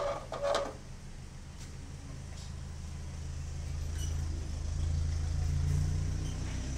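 A steady low motor hum that grows louder about halfway through, with two short sounds just at the start.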